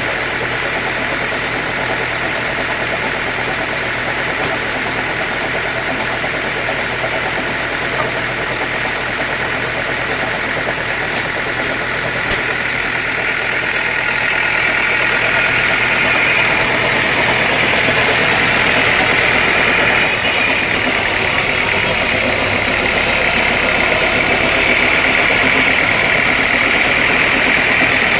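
Sawmill machinery running steadily; it gets louder about halfway through and stays at the higher level, with more hiss near the end.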